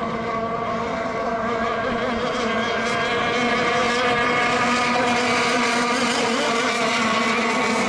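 Radio-controlled racing boats running together at speed during a heat: a steady motor whine of several tones, growing a little louder about three seconds in.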